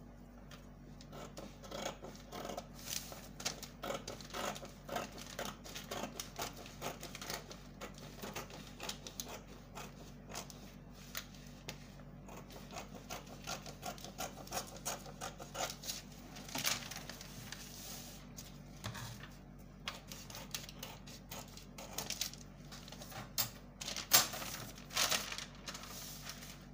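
Scissors cutting through pattern paper: an irregular run of sharp snips and crisp paper rustles, with one louder snap near the end. A low steady hum sits underneath.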